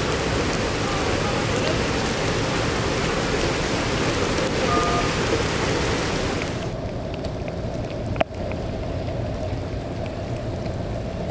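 Heavy rain falling, a steady hiss. About two-thirds of the way through it turns abruptly duller, and a single sharp click comes about eight seconds in.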